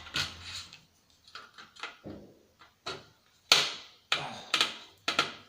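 Hard plastic and metal parts of a CRT TV/DVD combo knocking, clicking and scraping as a part held by a seized screw is worked loose by hand: several separate sharp knocks, the loudest about three and a half seconds in, with short scrapes between.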